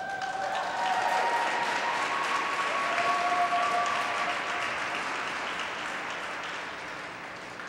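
Audience applauding with a few held cheers, greeting the end of a pairs figure-skating program. It starts suddenly, swells over the first few seconds, then slowly fades.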